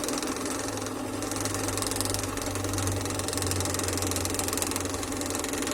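Electric scroll saw running steadily, its blade moving up and down very fast with a rapid mechanical chatter as it cuts through wood.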